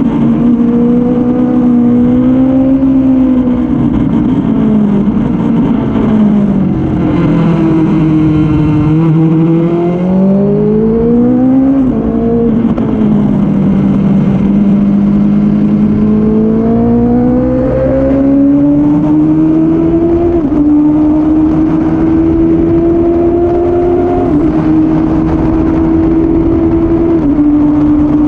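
Suzuki Bandit 600's inline-four engine pulling hard on track, the revs rising and falling through the corners, with sudden pitch drops at several upshifts near the end, over a rush of wind.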